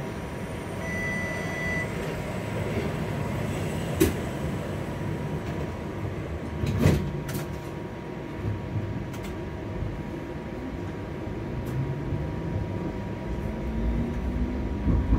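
Interior of a TTC streetcar: a steady running rumble with a constant electrical whine, a short beep about a second in, and a few sharp clicks and knocks. Near the end a pitched motor whine rises in pitch as the streetcar picks up speed.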